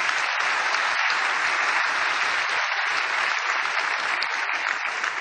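A large hall audience clapping, dense and steady.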